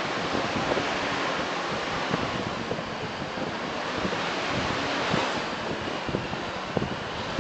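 Steady rush of wind buffeting the microphone and road noise from a moving tour bus, with scattered small knocks and rattles.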